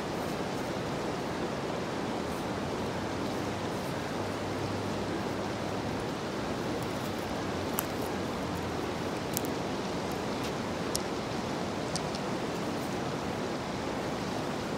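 Steady outdoor rushing noise, even and unbroken, with a few light clicks of footsteps on the stone ledge in the second half.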